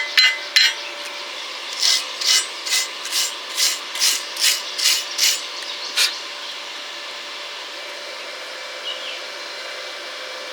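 A hand tool scraping metal in about ten even back-and-forth strokes, roughly two a second, after a couple of sharp metallic clinks at the start. It stops about six seconds in, leaving a steady faint hiss.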